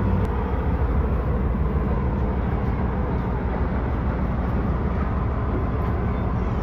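Passenger train pulling away from a station, heard from the open doorway of a coach: a steady low rumble of the moving coaches running on the rails.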